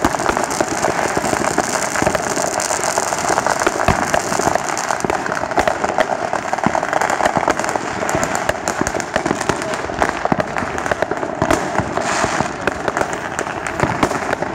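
Fireworks going off in a dense, continuous barrage of crackling pops, many sharp reports overlapping without a break.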